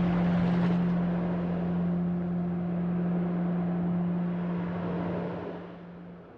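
A steady low hum over a hiss, fading away near the end.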